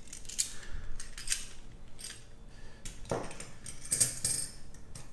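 One-ounce silver rounds clinking and sliding against each other as a stack of ten is fanned out into a row on a mat, with scattered light clicks and a denser run of clinks about three to four seconds in.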